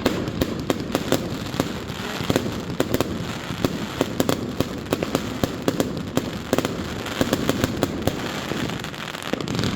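Many fireworks going off at once: a continuous crackle with sharp bangs and pops coming thick and fast throughout.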